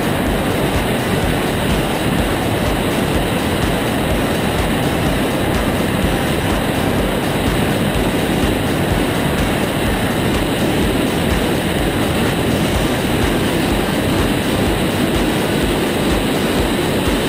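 Steady rush of wind buffeting a wing-mounted camera on an Aeroprakt A22 Foxbat in cruise flight, with the drone of its engine and propeller underneath and a regular low throbbing.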